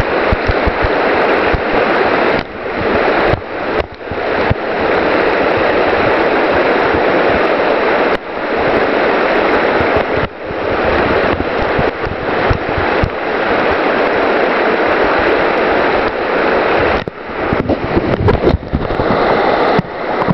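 Rushing whitewater of a river rapid, a loud steady rush broken by several sudden brief dips. There is low buffeting on the microphone in the first few seconds.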